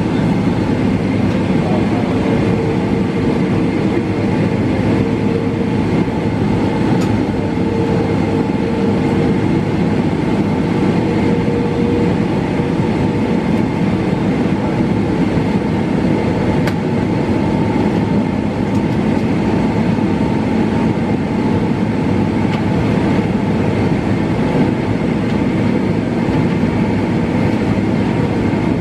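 Steady cabin noise of a jet airliner taxiing, heard from inside the cabin over the wing: the hum of the underwing turbofan engine at idle mixed with the rumble of the wheels rolling along the taxiway.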